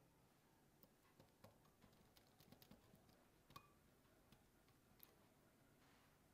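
Faint, irregular light clicks of a wire whisk tapping against a glass bowl while beating egg yolks, the sharpest tick about three and a half seconds in.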